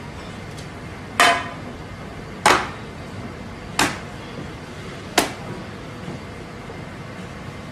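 Four sharp slaps on a large metal tray, each with a brief metallic ring, as raw meat slabs and hands come down on it.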